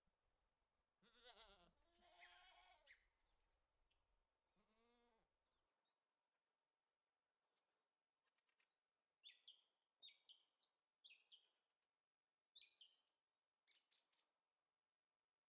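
Faint outdoor ambience: a farm animal bleats a few times with a wavering pitch in the first five seconds, then small birds chirp in short, repeated high notes.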